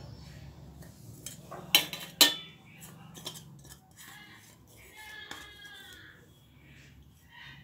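Two sharp metallic clinks about two seconds in, with a few lighter taps around them: stainless steel kitchenware such as the mixer jar being handled on the counter.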